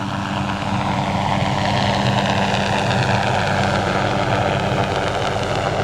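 Hughes 500D helicopter's turboshaft engine and rotors running steadily at close range, a strong steady hum with a high whine that slides slowly in pitch.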